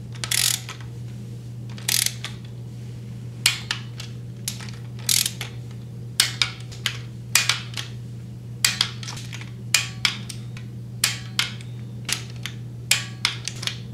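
Torque wrench ratcheting in short strokes as the water pump bolts are tightened: sharp clicks in small groups, roughly every second or so.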